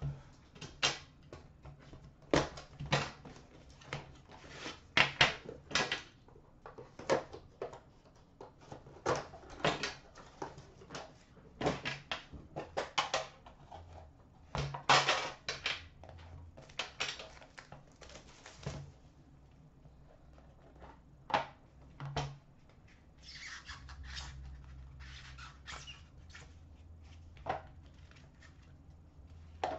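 Hands unpacking a hockey card box: irregular rustles, scrapes and light knocks of cardboard and plastic packaging as the box and its inner black tray are opened and handled.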